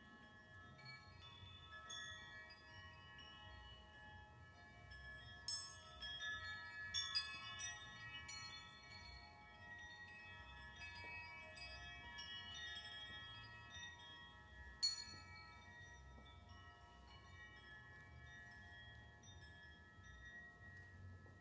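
Quiet contemporary chamber music of soft, long-ringing metallic bell-like tones held across each other. A few sharper struck notes come between about five and eight seconds in, and one strong strike near fifteen seconds.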